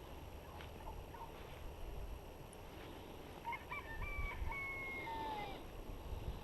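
A rooster crowing once, starting about three and a half seconds in: a few short notes and then a longer note that falls away at the end. A steady low wind rumble runs underneath.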